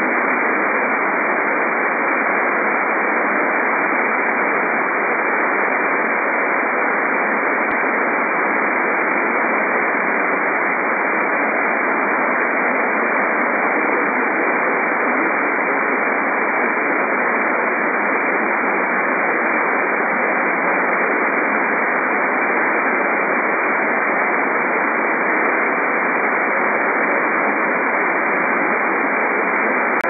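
Steady hiss of AM radio static through a band-limited AM receiver, with one faint click about eight seconds in.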